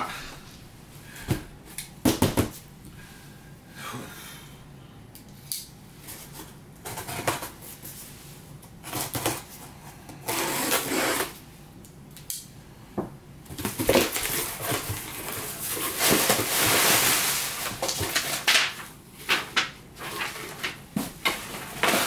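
A cardboard shipping box is set down on a table with a few sharp knocks about two seconds in, then opened: tearing and rustling of packing tape, cardboard flaps and packing, loudest in a long stretch past the middle, with scattered small clicks and bumps.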